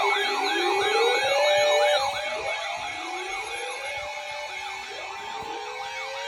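Emergency vehicle sirens, several at once: a fast yelp cycling about three times a second over slower rising wails. Louder for the first two seconds, then quieter.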